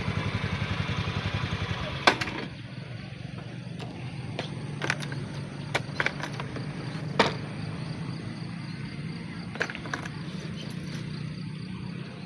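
Motorcycle engine idling with a rapid, even beat. It cuts out with a sharp click about two seconds in. A low steady hum and a few scattered sharp clicks follow.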